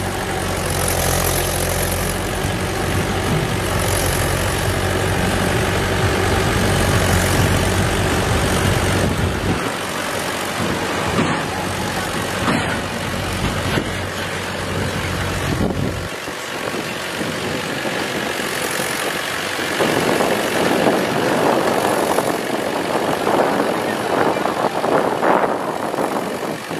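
Mahindra 575 DI tractor's four-cylinder diesel engine running hard under the heavy load of a mud-filled trolley. The deep low rumble thins out partway through, and a rougher, busier engine sound fills the last few seconds.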